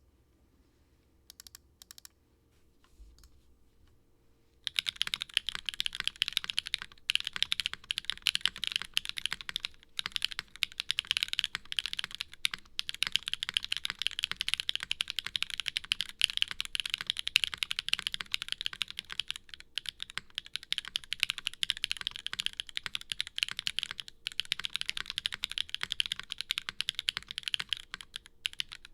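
Custom Acrylic Frog Mini mechanical keyboard being typed on, with stock Gateron Pure Berry switches in an aluminium plate, GMK Striker keycaps and a tadpole mount. A few light key presses come first, then fast continuous typing from about five seconds in, broken by a few brief pauses.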